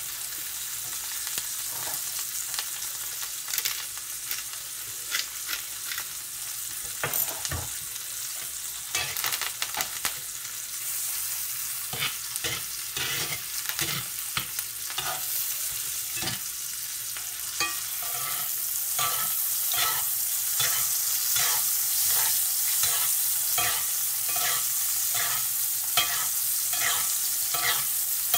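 A ribeye steak frying with garlic and thyme in hot butter in a cast iron skillet: a steady sizzle with frequent clicks of utensils against the pan. About two-thirds of the way through the sizzle grows louder as the steak is basted, with a regular spoon stroke once or twice a second.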